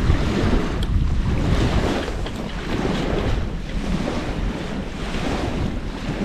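Wind buffeting the microphone in a steady, uneven rumble, with a few faint crackles from a wood campfire.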